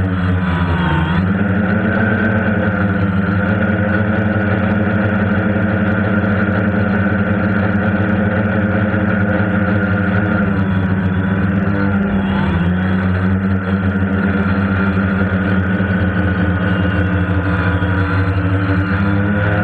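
DJI Phantom quadcopter's motors and propellers buzzing steadily, heard up close from the mounted GoPro. The pitch dips and climbs back near the start and again past the middle as the throttle changes, with a thin high whine above.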